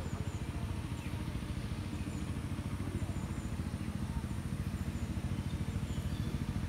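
An engine running steadily with an even, rapid low throb.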